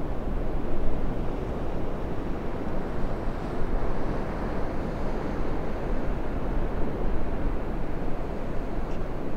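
Ocean surf breaking in a steady wash of noise, overlaid with wind buffeting the microphone in a low rumble.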